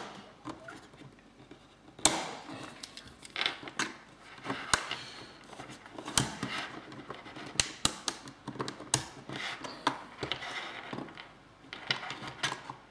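A small screwdriver prying and scraping at the plastic case of a Browan MerryIoT helium hotspot, with irregular sharp plastic clicks as the clip-held bottom cover is worked loose.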